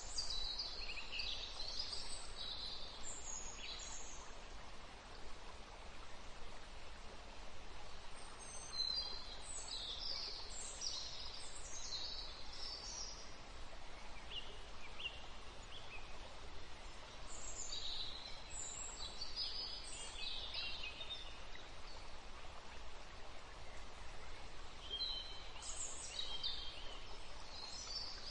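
Birds chirping in short bursts of high notes every few seconds, over a steady even hiss.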